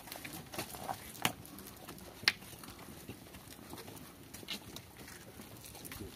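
Footsteps of a small crowd shuffling slowly past, with a few scattered sharp clicks and taps. The loudest tap comes about two seconds in.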